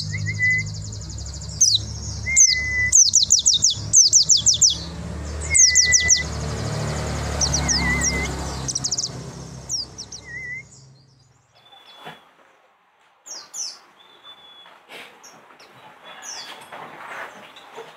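White-eyes (pleci) chirping and twittering, with many rapid high sweeping chirps and short whistled notes, over a low steady hum. The hum cuts off about ten seconds in, after which the chirps are sparser and quieter.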